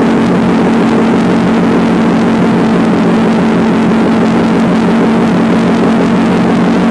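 Motorcycle engine running at steady revs while cruising, with loud wind rush over it.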